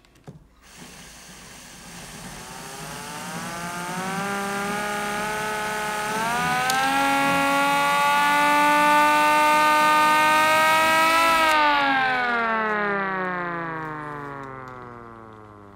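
3D-printed miniature 10/12-port siren spun up by a drill, sounding two notes at once: it winds up in pitch over about six seconds, holds a steady wail for about five seconds, then winds down, falling in pitch and fading as the rotor coasts.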